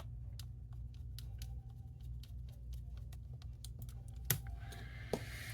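Light, irregular clicks and taps of small tools and plastic laptop parts being handled, with a sharper click about four seconds in. A steady low hum lies underneath.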